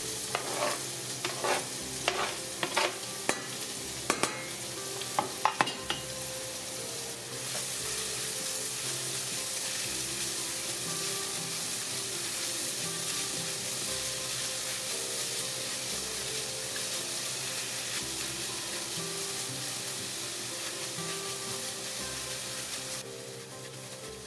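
Diced onion frying in hot ghee with cumin seeds in a stainless steel saucepan: sharp taps against the pot for the first six seconds as the onion goes in and is stirred with a silicone spatula, then a steady sizzle.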